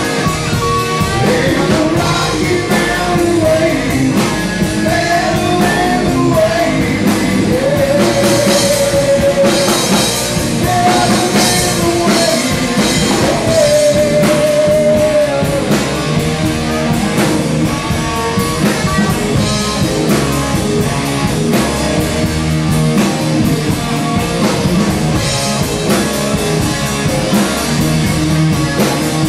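Rock band playing, with guitar, drum kit and a singer. The singer holds long notes through the first half, then the instruments carry on.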